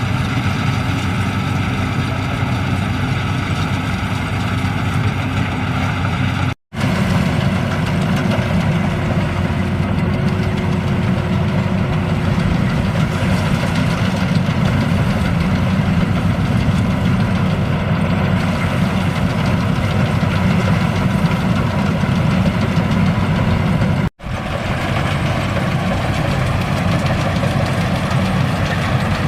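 Combine harvester's diesel engine and threshing machinery running steadily at work in a rice paddy. The sound cuts off abruptly twice, for a split second each time.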